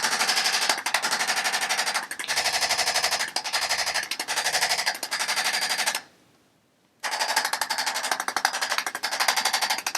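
Handheld electric percussion adjusting instrument tapping rapidly against the spine in a fast, even machine-gun-like rattle. It stops for about a second roughly six seconds in, then starts again.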